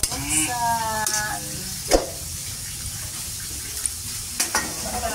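Cockles in adobo sauce sizzling in a wok over a gas flame while a spatula stirs them, with a sharp knock of the spatula against the pan about two seconds in and a few lighter clicks near the end. A short wavering tone sounds in the first second and a half.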